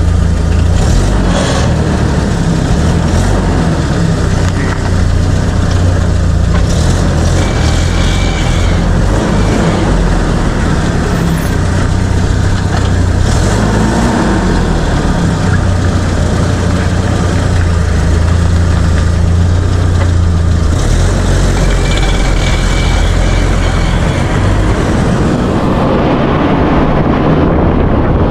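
Car running on the road with a steady low rumble of engine and road noise. A short high-pitched squeak comes twice, about eight and twenty-two seconds in. The owner says this squeak appears once the car has warmed up and does not know its cause.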